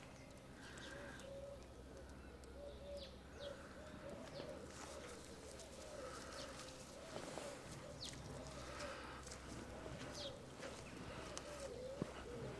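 Alpacas humming: many short, soft hums that rise and fall in pitch, one after another and overlapping. Small birds chirp now and then.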